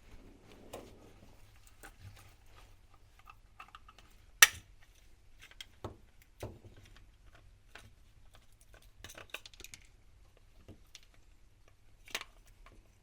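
Small clicks and taps of hand work on a plastic headtorch case and a small screwdriver while its Phillips screws are undone, with one sharp click about four seconds in and another near the end.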